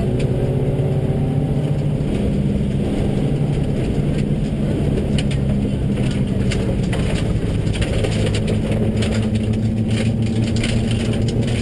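Subaru rally car's engine running hard at speed on a gravel road, its note holding steady with small shifts in pitch. Gravel and stones clatter against the car, in short clicks that come more often in the second half. Two recordings of the same car on two passes are layered, one per stereo channel.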